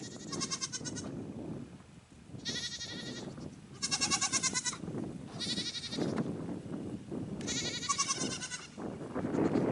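Goats bleating, about five wavering calls one after another, over a low rustling noise.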